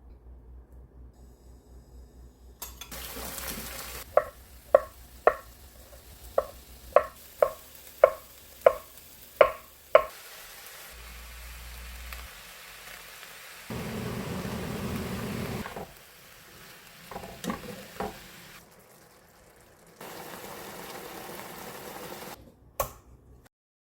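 Cooking sounds: food sizzling in a pan in several stretches that start and stop abruptly, with a run of about a dozen sharp, ringing knocks of a utensil, about two a second, and a few more knocks later.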